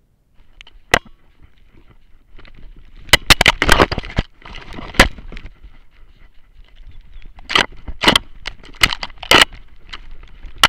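Irregular sharp knocks and crackles from a camera strapped to a hunting dog's harness, jostled against fur, harness and snow as the dog moves, over a low rustling. The knocks come in a cluster around three to four seconds in and another from about seven and a half to nine and a half seconds.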